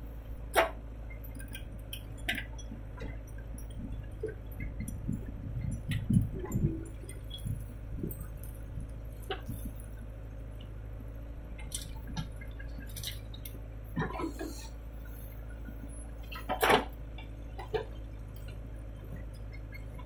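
Backhoe loader's diesel engine running with a steady low drone, while scattered knocks and clatters come from the rear bucket digging and dropping soil into a tractor trolley.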